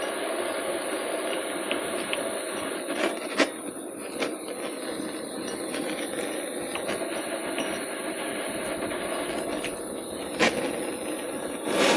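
A power tool running steadily with a hissing edge, broken by a few sharp clicks, the loudest about a third of the way in and again near the end.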